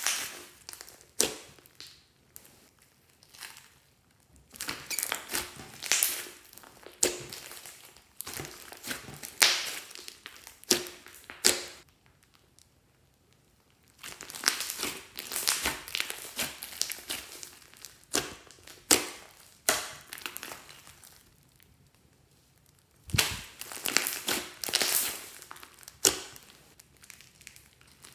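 Hands squeezing, folding and pressing a large batch of fluffy slime: sticky squelches with sharp little clicks and crackles, in bursts broken by short quiet pauses.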